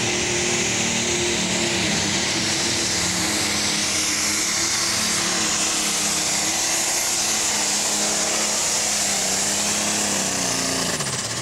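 Pro Stock pulling tractor's turbocharged diesel engine running flat out under load as it pulls the sled, loud and steady. The engine note drops near the end.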